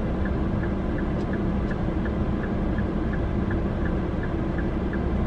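Inside a car cabin, the engine and cabin hum run steadily under an evenly repeating tick of the turn-signal flasher, about two to three ticks a second.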